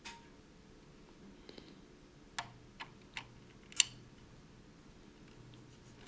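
A few sharp plastic clicks and taps as the back cover of a handheld remote control is fitted and pressed shut. The loudest click comes a little under four seconds in.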